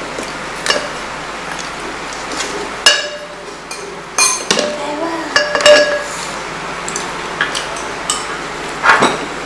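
Utensils clinking and knocking against dishes at a meal: a handful of separate sharp clinks, several with a short ringing tone, the loudest about three seconds in, around five and a half seconds in, and near the end.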